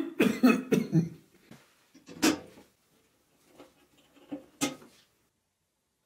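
A man coughing: a quick fit of about five coughs, then a single cough a little after two seconds and two more near the end.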